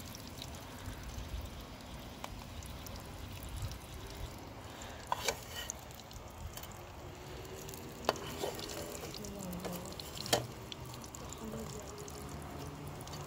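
Filled pastries frying in oil in a metal pan, sizzling steadily, with a few sharp clinks of a metal slotted spoon against the pan as they are turned.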